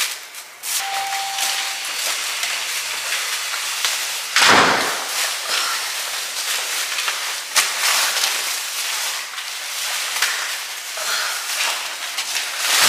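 Steady hiss of falling rain, with a few sharp knocks and a louder swoosh about four and a half seconds in. A short steady tone sounds for about a second near the start.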